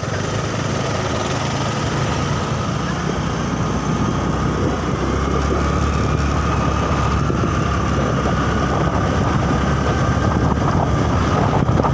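A motor vehicle's engine running with road noise: a steady low rumble under a thin steady whine, growing slightly louder.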